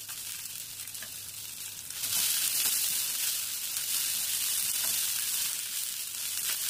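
Chopped green chilli, ginger and cumin seeds frying in hot oil in a pan: a steady sizzle that gets louder about two seconds in.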